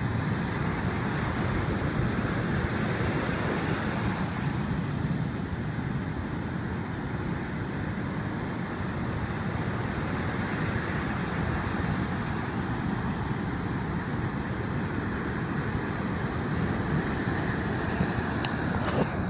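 Ocean surf breaking and washing up onto a sand beach, a steady rushing wash of waves, with wind rumbling on the microphone.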